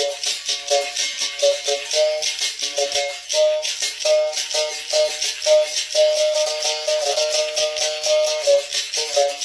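Berimbau played with a caxixi rattle: the struck wire switches between two notes in a quick, steady rhythm, and the caxixi is shaken along with each stroke.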